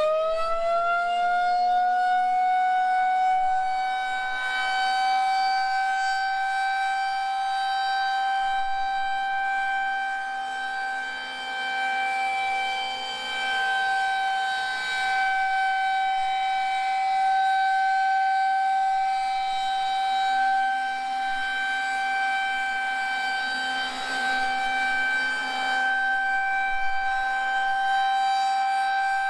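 Federal Signal 2001-130 electromechanical rotating siren sounding the steady Alert signal: one long, unbroken tone held at full pitch, its loudness gently rising and falling every few seconds as the rotating head sweeps past.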